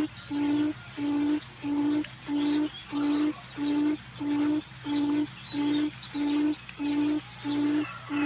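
Forest quail lure call: a low hooting note at one steady pitch, repeated evenly about twice a second. Faint high, falling chirps of other birds sound above it.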